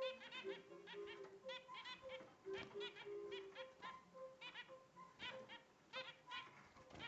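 Zebra finches calling: quick clusters of short, nasal, beeping chirps, repeated throughout, over faint background music.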